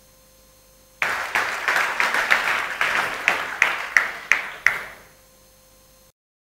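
Audience applauding, starting suddenly about a second in and dying away after about four seconds, with a few loud single claps standing out near the end. A faint steady electrical hum sits under the quiet parts, and the sound cuts off completely near the end.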